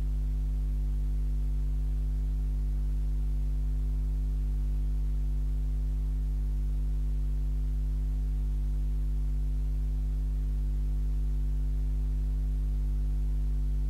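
Steady electrical mains hum from the recording setup: a low, unchanging hum with a buzz of evenly spaced overtones above it.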